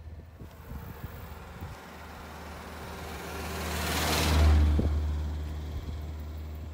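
An MG sports car driving past close by. Its engine and tyre noise build up, peak about four and a half seconds in, then fade as it moves away.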